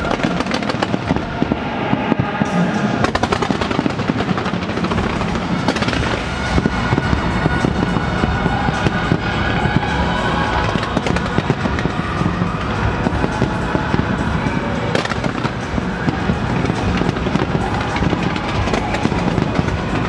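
Fireworks fired at close range from a stadium roof, in a dense, unbroken run of bangs and crackles, with music underneath.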